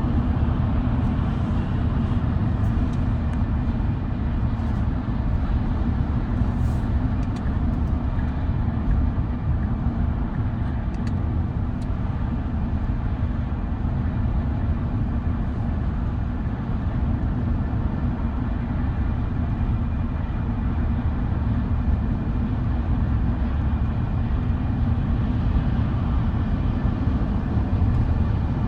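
Steady low road rumble inside the cab of an electric Tesla Cybertruck CyberBeast driving at highway speed while towing a loaded trailer.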